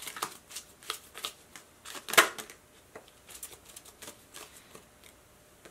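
Tarot cards being handled and shuffled: a run of soft card clicks and snaps, with one sharp snap about two seconds in, thinning out from about three seconds in.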